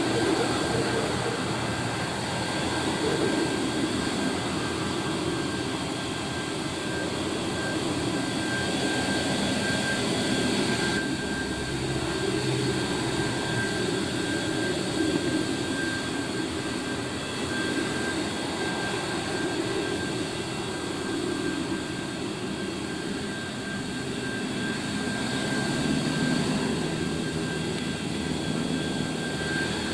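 Boeing 737-200's Pratt & Whitney JT8D jet engines running steadily at low power, a continuous hum with a thin high whine held at one pitch.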